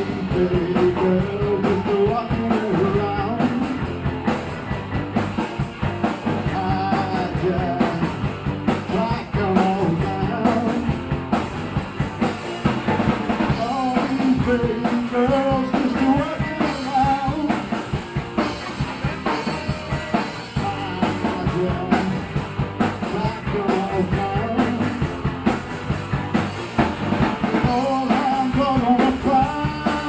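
Live rock band playing: a drum kit keeping a steady beat under electric guitars, with a melodic line bending up and down in pitch.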